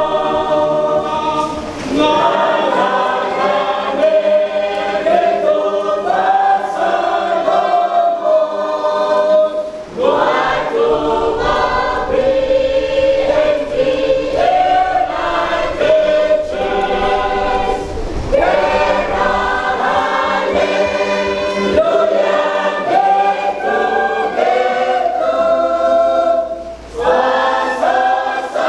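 Church choir singing a hymn in harmony, in phrases with a brief break about every eight seconds.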